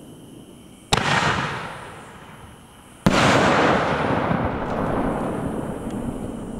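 Two aerial firework bursts about two seconds apart, each a sharp bang followed by a long fading tail of crackle and rumble, the second tail lasting longer.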